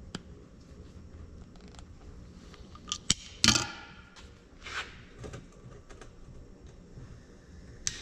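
Hand tools handled on a workbench: a few sharp clicks of a wire stripper/crimper, then a clatter about three and a half seconds in as the metal tool is set down, followed by smaller knocks and a click near the end.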